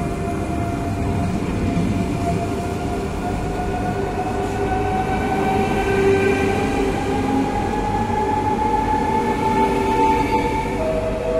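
Régio 2N double-deck electric TER train pulling away from the platform. Its traction motors give a whine that climbs slowly in pitch as it gathers speed, then steps down suddenly near the end, over the rumble of the wheels.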